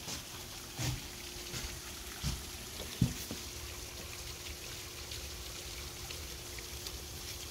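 Pond aerator fountain spraying and splashing back onto the water: a steady, faint trickling rush. A few soft knocks sound in the first three seconds.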